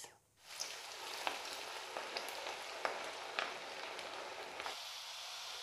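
Taro root (arbi) wedges deep-frying in hot oil in a wok: a steady sizzle with scattered sharp pops, starting about half a second in.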